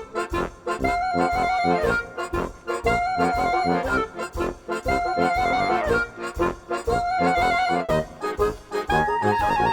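Background music: an upbeat instrumental track with an accordion-like lead and a steady beat, its melody phrase repeating about every two seconds.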